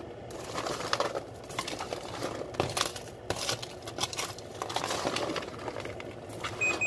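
Sugar-and-butter-coated popcorn, partway through baking, being stirred in disposable aluminium foil pans: a steady run of irregular rustling, crunching and clicking as the kernels tumble and the utensil scrapes the foil.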